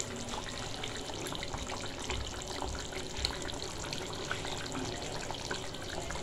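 Bengali fish curry (macher jhol) with potatoes bubbling at a simmer in a metal kadai, a steady hiss broken by many small bubble pops.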